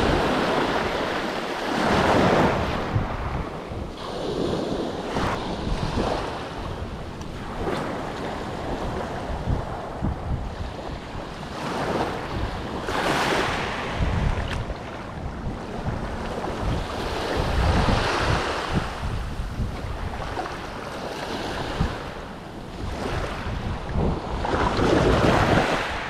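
Small sea waves breaking and washing up the shore, swelling and fading every few seconds, with wind buffeting the microphone.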